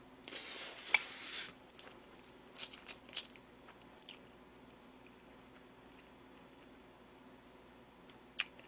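A person eating a spoonful of soft rice mixed with butter sauce and runny soft-boiled egg: a brief wet noisy burst with a sharp click as the spoonful goes into the mouth, then a few faint mouth clicks of chewing.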